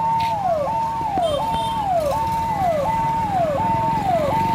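Police vehicle siren sounding a repeating cycle: a high tone held briefly, then sliding down and snapping back up, a little under once a second. It cuts off abruptly near the end.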